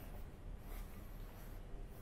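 Faint ambience of an underground metro station platform: a steady low rumble under a light hiss.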